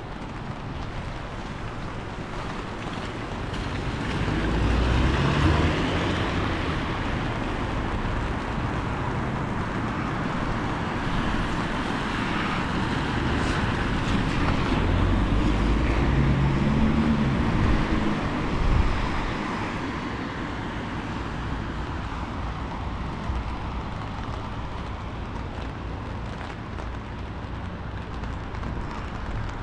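Gusty wind rushing through the street and buffeting the microphone, with two stronger gusts about five seconds in and again about fifteen to eighteen seconds in.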